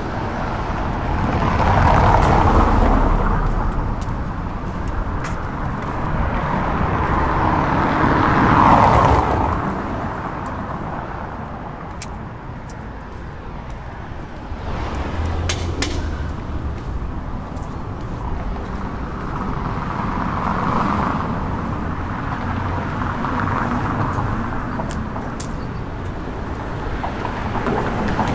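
City street traffic: several cars pass one after another, each a rush of engine and tyre noise that swells and fades over a few seconds. The loudest pass is about nine seconds in.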